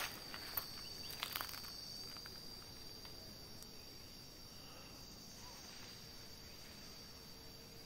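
Cicadas in a steady high-pitched drone, with a few faint clicks in the first second and a half.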